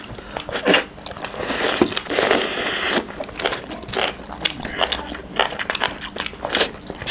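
Two people eating chicken curry and rice with their hands: wet chewing, biting and lip smacks, many short sharp clicks, and a denser hissing stretch of chewing about two seconds in.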